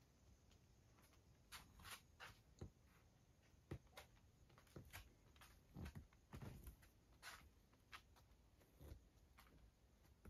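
Near silence: quiet room tone with faint, scattered soft taps and rustles.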